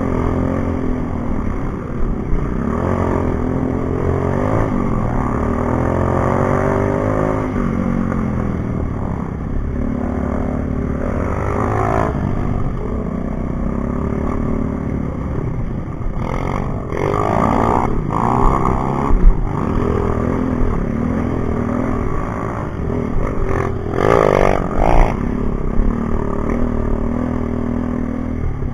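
Dirt bike engines running on a trail ride, the revs rising and falling again and again as the throttle is worked. There are a few louder bursts of throttle about two-thirds of the way through.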